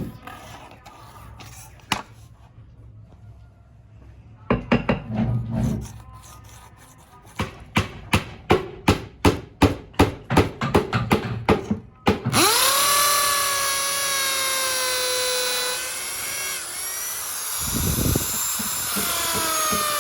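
Woodworking tool sounds. First a short burst of scraping, then a run of even strokes at about two a second. About twelve seconds in, a power tool's motor starts with a whine that settles to a steady pitch and keeps running.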